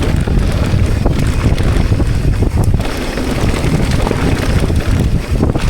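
Heavy wind rumble on the microphone of a mountain biker riding at speed, with small irregular knocks and rattles through it.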